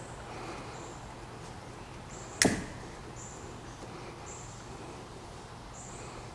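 A single sharp plastic click about two and a half seconds in: the wiring connector's latch snapping as it is worked at the back of a Mercedes door courtesy light. A faint steady hum runs beneath.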